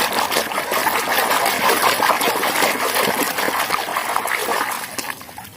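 Running water gushing and splashing over a plastic toy vehicle as it is washed clean of mud. The water runs steadily and fades near the end.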